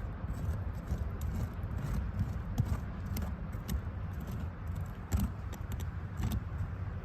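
Hand digging in a privy pit: scattered short clicks and scrapes of a tool and debris knocking together, over a steady low rumble.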